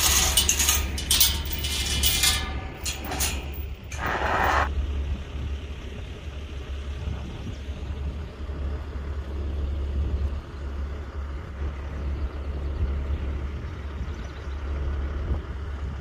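Steel livestock pen gate and its chain rattling and clanking as it is unlatched and swung open, with clattering knocks and a little metallic ringing over the first four seconds or so. After that there is only a steady low rumble of wind on the microphone.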